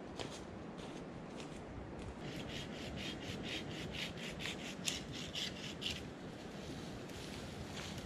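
Footsteps crunching through dry leaf litter, then a hand saw cutting into a conifer branch in quick, even strokes, about four to five a second, for around four seconds before stopping.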